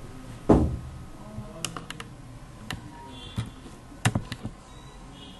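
Computer keyboard keys clicking in a few short, scattered keystrokes, with a louder thump about half a second in.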